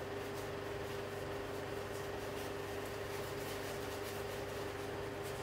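Steady background hum with a constant mid-pitched tone and even hiss, over which come a few faint light ticks.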